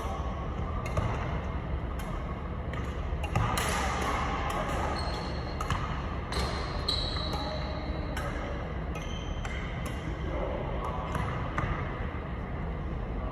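Badminton rally: rackets striking a shuttlecock in sharp, irregular clicks that echo in the hall, with a few short high squeaks of shoes on the wooden court. A steady low hum runs underneath.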